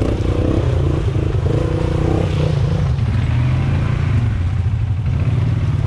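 Quad ATV engines running with a steady low rumble, several machines close together.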